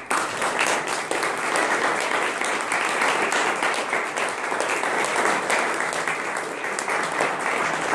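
Audience applauding: many people clapping at once, a steady, dense patter of claps.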